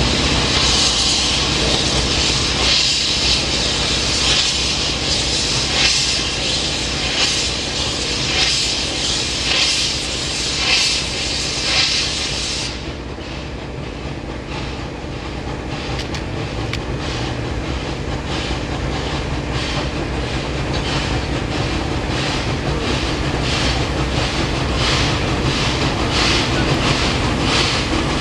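Steam locomotive working hard, with a strong hiss of steam and its exhaust beats repeating at an even rhythm. About halfway through, the high hiss drops away abruptly while the exhaust beats carry on.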